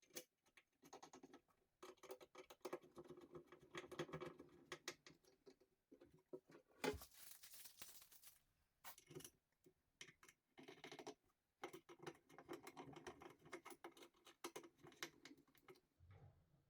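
Irregular light clicks, taps and scraping of metal cabinet door hinges being handled and fitted to a flat-pack unit, with a brief rushing scrape about seven seconds in.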